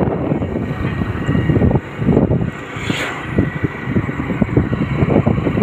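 Wind buffeting a phone's microphone on a moving scooter, in uneven gusts with a brief lull about two seconds in and a short crackle about three seconds in.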